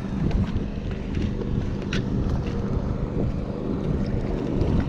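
Wind buffeting the microphone, a loud, uneven low rumble, with a faint click about two seconds in.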